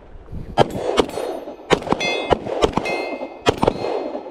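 Pistol shots fired by several shooters walking forward, about eight reports at uneven spacing. Several of them are followed by a metallic ringing as rounds hit steel targets.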